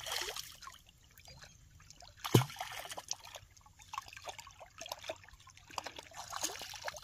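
Stones tossed into reservoir water from the rocky shore: a loud plop about two and a half seconds in, with small splashes and trickling of water at the edge.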